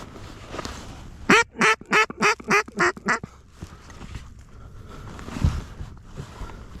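A quick run of seven loud mallard-hen quacks, about four a second, followed by a single thump about five seconds in.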